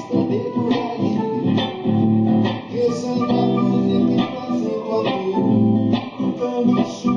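Live band playing at a soundcheck: guitar-led music over bass, with a steady rhythmic strum.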